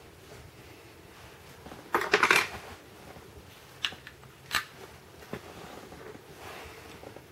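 Clicks and clacks of an APS Stechkin airsoft pistol being handled: a quick rattling cluster about two seconds in, then two single sharp clicks a little more than half a second apart, and a soft rustle near the end.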